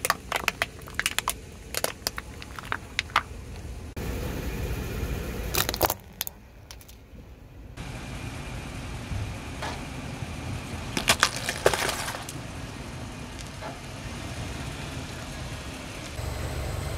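Brittle objects cracking and snapping as a car tyre rolls over and crushes them, over the car's low rumble. There are clusters of sharp cracks during the first three seconds, a few more about six seconds in, and another burst around eleven to twelve seconds.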